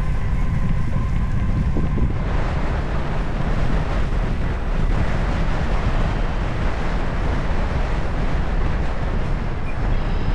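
Wind buffeting and rushing over the microphone of a camera on a moving bicycle, a steady low rumble that grows fuller and brighter about two seconds in.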